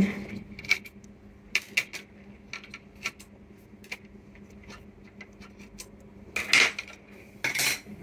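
Light clicks and clatter of a circuit board and small hand tools being handled and set down on a wooden workbench, scattered through, with two louder knocks near the end.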